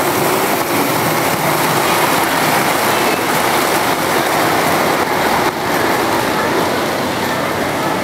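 Model train running on a layout track, over the steady background din of a busy show hall.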